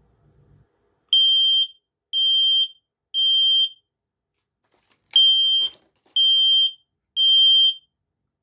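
I-1040 sealed 10-year smoke alarm sounding its self-test in the temporal-three (code 3) pattern. Its piezo horn gives three loud, high, steady beeps about a second apart, a short pause, then three more. A brief click of handling comes over the fourth beep.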